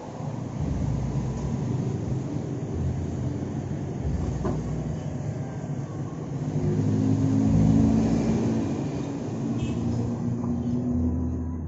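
Small motorcycle engine running, picking up speed briefly partway through and then settling back.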